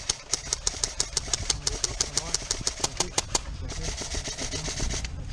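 Airsoft rifle firing a rapid string of single shots on semi-auto, about seven a second, each a sharp crack, stopping about three and a half seconds in.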